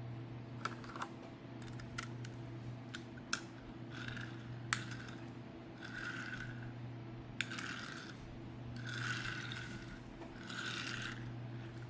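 A die-cast toy ambulance being handled: scattered light clicks and several brief rubbing scrapes, over a steady low electrical hum.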